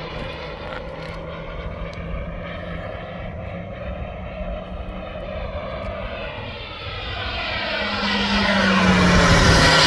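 KingTech 210 G4+ model jet turbine in a flying RC jet. It is a steady whine and rush at first, growing much louder over the last few seconds as the jet comes close, with a low hum that rises slightly in pitch and a sweeping, phasing quality.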